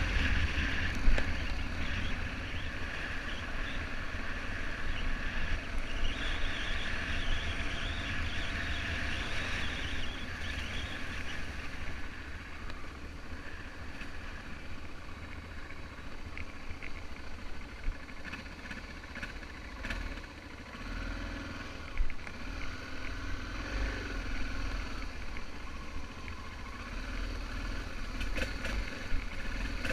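BMW F650GS motorcycle engine running while riding off-road, its pitch shifting with the throttle, under low wind buffeting on the camera microphone. A few sharp knocks come through, one near the start and two around two-thirds of the way in.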